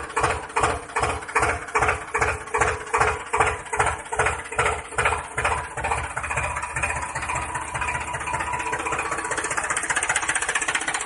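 Tractor engine chugging with a slow, regular beat of about three thumps a second. About six seconds in it settles into a faster, steadier run.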